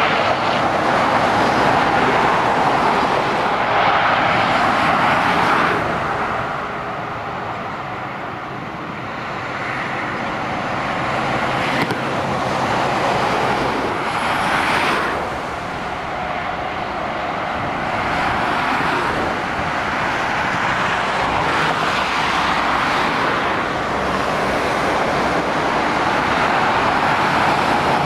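Motorway traffic heard from a bridge above the carriageway: heavy lorries and cars passing beneath, their tyre and engine noise swelling and fading as each goes by. There is a quieter lull a few seconds in.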